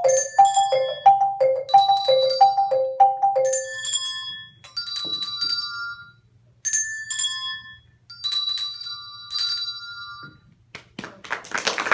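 Tuned handbells played in a quick two-note figure, then single bell notes ringing out one at a time. Applause breaks in near the end.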